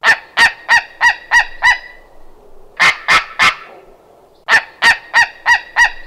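White-tailed eagle calling: quick runs of short, sharp repeated calls, about three a second, in three runs separated by brief pauses.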